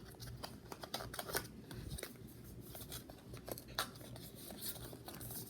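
Hands handling the small cardboard box of a speed cube, with faint scratching and scattered light clicks as fingers work at the packaging.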